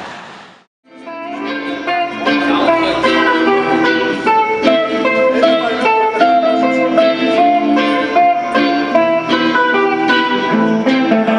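A rushing noise fades out at the very start; after a short silence, music on a plucked string instrument begins about a second in and runs on as a steady stream of picked notes and chords.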